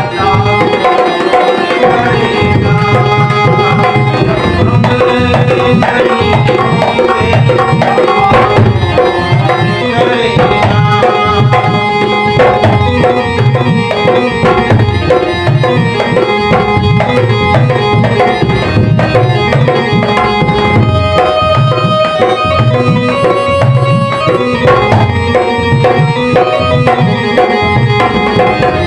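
Instrumental interlude of a Hindi ghazal: tabla playing a steady rhythm under a melodic instrument line.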